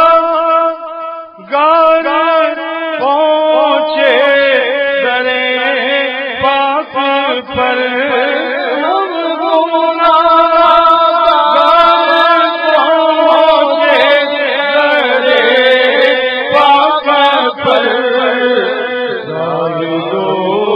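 An Urdu naat chanted by a man's voice in a slow, melismatic melody without instruments, the long notes bending and held, with a short break about a second in.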